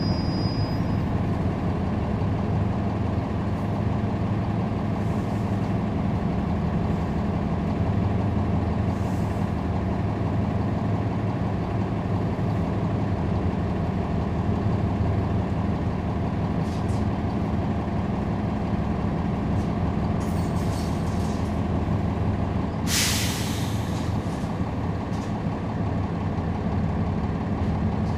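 The bus's Cummins ISL9 diesel engine, heard from on board, running steadily at an even, unchanging pitch, as at idle. Once, late on, a short hiss of released air cuts in, as from the bus's air brakes.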